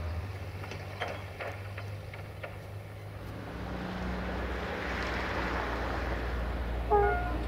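Diesel locomotive running as the train approaches, its low drone growing louder through the middle. Near the end a multi-tone locomotive horn starts to sound.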